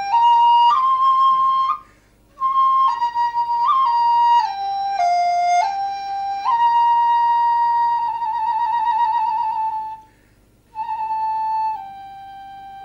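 Background music: a solo flute playing a slow melody of held notes, with a wavering vibrato on one long note about eight seconds in and two short breaks between phrases.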